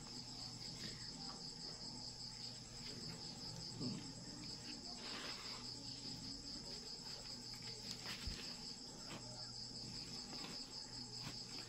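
Steady high-pitched insect trilling, like crickets, carries on throughout. Over it come soft scrapes and rustles of hands pressing potting soil into a plastic pot, with a faint knock about eight seconds in.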